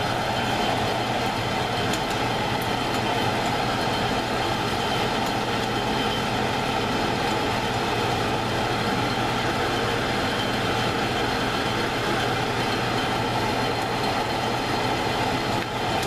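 Pine sap sizzling steadily as it melts in a small stainless steel pot on an electric coil burner at medium-high heat, with faint crackles; it is cooking a little too fast.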